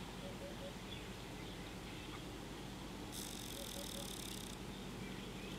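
Outdoor ambience over a steady low hum, with an insect buzzing high and bright for about a second and a half starting about three seconds in. A faint short three-note call sounds twice, near the start and again during the buzz.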